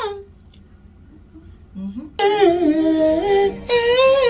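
A solo voice singing a hymn unaccompanied into a studio microphone, in long held notes that step up and down in pitch. One note ends just after the start, the singing pauses for about two seconds, then it resumes.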